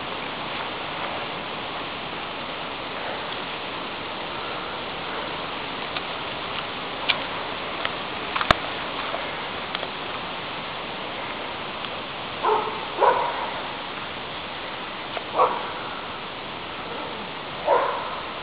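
Airedale terrier giving four short barks in the second half, the first two close together, over a steady rushing hiss; a sharp click about eight and a half seconds in.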